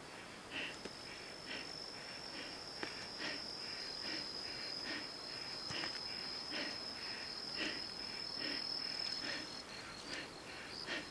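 An insect's steady high trill, holding one pitch and breaking off briefly near the end, over footsteps on the leaf-strewn trail about once a second.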